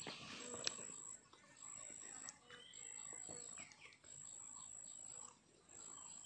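Faint outdoor ambience: an insect trilling in high, thin pulses about a second long, repeating with short gaps, with a few short bird chirps in between and a single sharp click under a second in.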